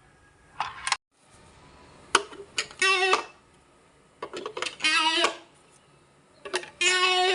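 An added sound effect repeats three times, about every two seconds. Each time a few sharp clicks are followed by a short pitched, wavering tone.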